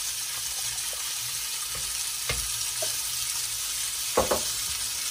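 Steady sizzle of shallots and thyme cooking in butter in a stainless saucepan as red wine goes in, with two light knocks, a little after two seconds and near four seconds in.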